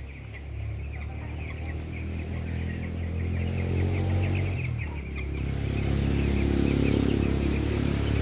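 A large flock of chickens peeping rapidly under a steady engine hum. The engine grows louder and drowns out the birds in the second half.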